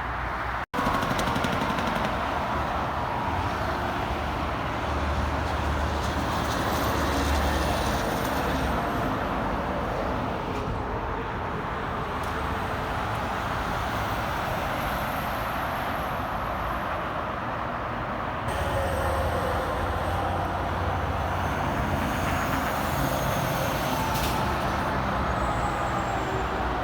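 Interstate highway traffic passing steadily: tyre roar and engine drone, swelling twice as heavy trucks go by, about five seconds in and again about twenty seconds in, with faint high whistles.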